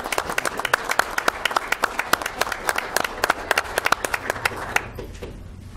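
Applause from a small group of people: many quick hand claps that thin out and stop about five seconds in.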